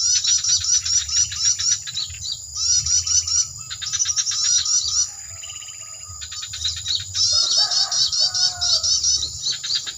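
Small songbirds chirping in rapid high notes, about five a second, in runs broken by short pauses and a longer quiet stretch about halfway through. A low steady hum runs underneath.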